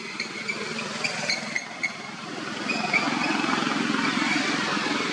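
A motor vehicle's engine running, growing louder about halfway through, with a few short high-pitched chirps in the first couple of seconds.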